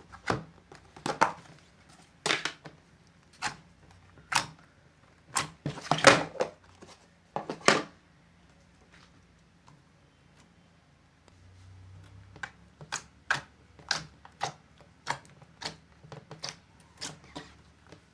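Slime being squeezed and pressed, letting out sharp clicking pops. The pops come loud and irregular for the first eight seconds, then after a short pause as a quieter, even series of about two a second.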